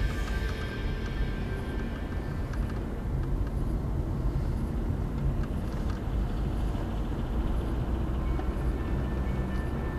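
Car cabin noise while driving, picked up by a windscreen dashcam: a steady low rumble of engine and tyres with a faint steady high tone.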